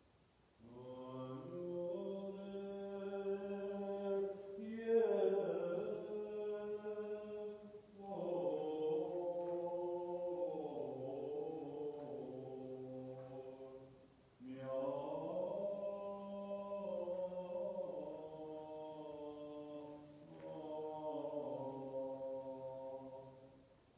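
Armenian church liturgical chant sung by a man's voice in four long, slow melodic phrases with short breaks between them.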